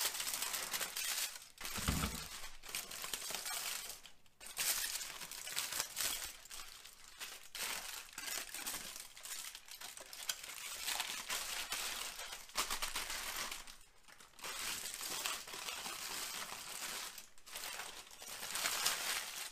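Aluminium foil crinkling and crackling as it is peeled open by hand, in a long run of handling with a few short pauses. A dull low bump sounds about two seconds in.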